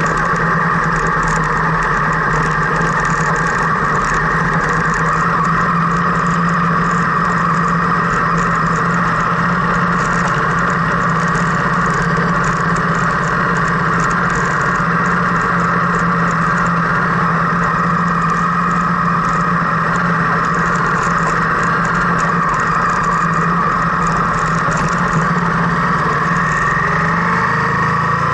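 Car engine running at a low, steady speed, heard from inside the cabin, with fine crackling of gravel under the tyres. The engine's pitch shifts near the end.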